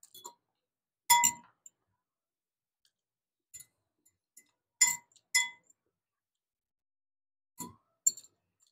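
Metal fork clinking against a glass bowl: about seven short, bright clinks, some in quick pairs, each with a brief ring.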